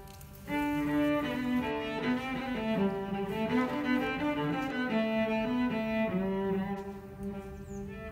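Background instrumental music: a slow melody of held notes, dipping briefly just after it begins.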